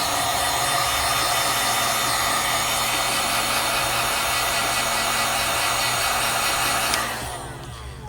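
Hot-air blower, a heat gun or hair-dryer-type tool, running steadily with a loud rushing hiss and a faint whine. About seven seconds in it is switched off with a click and winds down.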